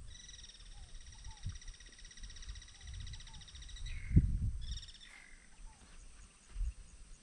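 A bird sings a long, fast, buzzy trill for about four seconds, then a short second trill about five seconds in, with a few faint short chirps around it. Low rumble of wind on the microphone, and a single dull thump about four seconds in.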